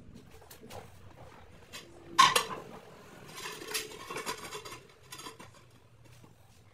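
Large glazed ceramic floor tiles knocking together with one sharp clack about two seconds in, then scraping and clattering for a second or two as a tile is slid by hand into line with its neighbours.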